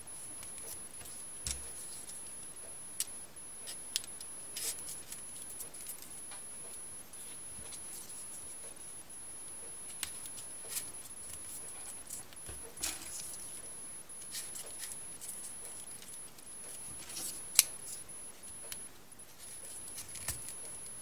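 Folded paper triangle modules being pushed into the rows of a 3D modular origami figure: scattered crisp paper clicks and rustles at irregular intervals, one sharper click near the end, over a faint steady hiss and a thin high-pitched whine.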